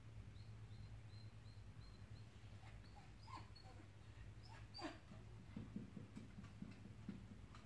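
Faint, high-pitched dog whimpering: a run of short squeaks, then a longer whine sliding down about two thirds through, followed by soft low tapping near the end.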